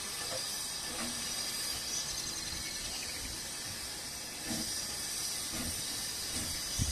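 Steady hiss of steam from Hunslet saddle tank steam locomotive NCB No. 49, with a brief knock just before the end.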